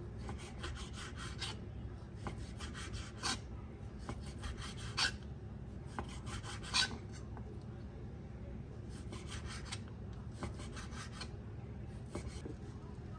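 Kitchen knife cutting bacon into small pieces on a cutting board: spells of quick rasping strokes, with a sharper knock of the blade on the board every second or two.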